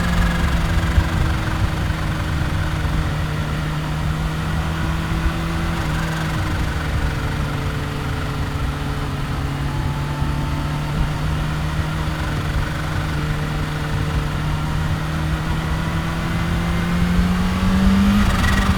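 Kawasaki Ninja H2's supercharged inline-four engine running at a steady cruising speed, its note sagging slightly and then climbing briefly near the end before easing off.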